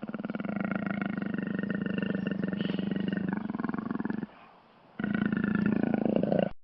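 Jaguar roaring: one long, rough, pulsing call, a short break about four seconds in, then a second call that stops abruptly at the end.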